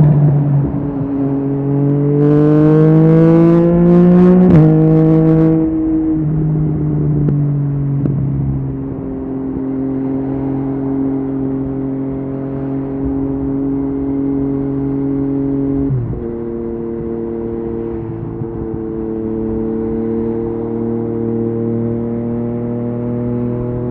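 Yamaha MT-09's three-cylinder engine through an Akrapovic exhaust, accelerating with revs rising, then a quickshifted upshift drops the pitch about four and a half seconds in. It then cruises at steady revs, with another quick drop in revs about sixteen seconds in.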